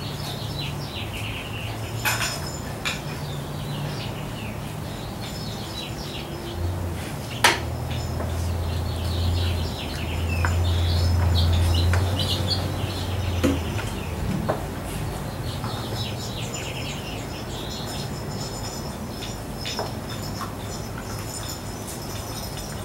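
Seven-week-old Labrador retriever puppies playing and scuffling over toys, with scattered high chirps, a few sharp clicks, and a low rumble for several seconds in the middle.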